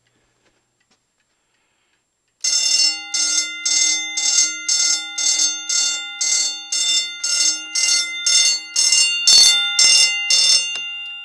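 Simplex fire alarm bell in vibrating bell mode on a homemade system, set off about two seconds in. It rings in rapid pulses, roughly two strokes a second, paced by a 555 oscillator circuit. The pulsing stops near the end and the gong rings on as it fades.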